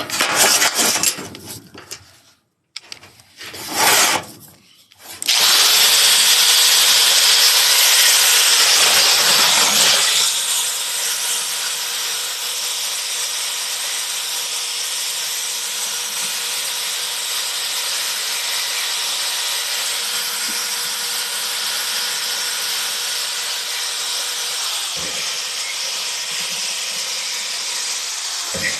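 Handheld power grinder grinding: a few short bursts, then running continuously from about five seconds in, heaviest until about ten seconds and lighter and steady after that.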